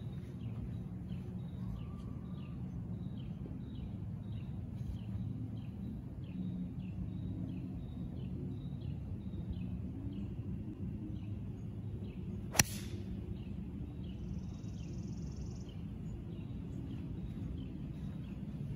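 A single sharp crack of a 3-iron striking a golf ball off the tee, about two-thirds of the way through. Under it, steady low outdoor background noise and short high chirps repeating about twice a second.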